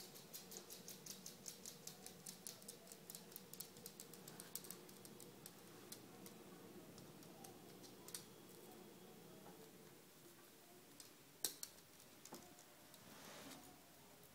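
A small dog's claws clicking on a tile floor: a quick run of faint ticks for the first five seconds or so, then a few single clicks, one sharper click about two-thirds of the way through.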